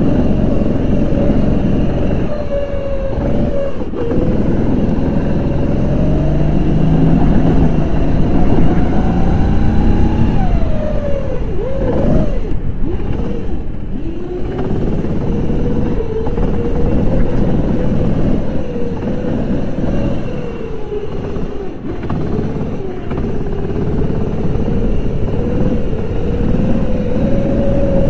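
Kart engine heard from the driver's seat at racing speed, its revs climbing along the straights and falling off into the corners, with a deep drop and recovery about eleven to fourteen seconds in.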